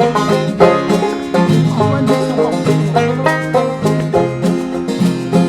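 Background music: a bluegrass-style instrumental passage of quick, plucked banjo notes with guitar, with no singing.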